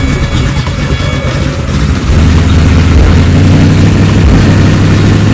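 The engine of a G-body Buick Regal running with a low, steady exhaust note that gets louder about two seconds in.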